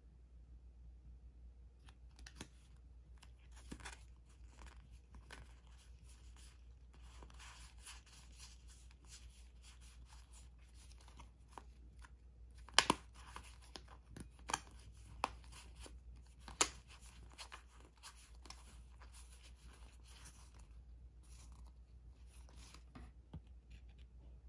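UNO playing cards being handled and sorted by hand: soft sliding and rustling of card against card, with a few sharper card snaps around the middle.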